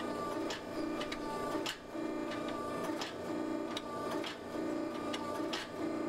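Hydraulic forging press running, its motor and pump humming steadily while the ram cycles in a quick, even rhythm, squeezing red-hot steel between round dies. Light clicks are scattered through it.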